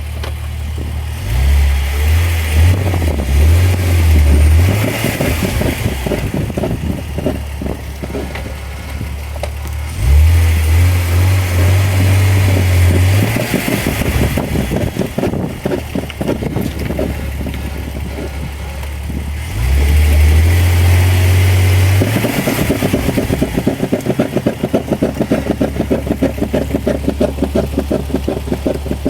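BMW E46 330ci's 3.0-litre inline-six running, rising in three loud surges of revs or acceleration. After the third surge it settles into a fast, even pulsing.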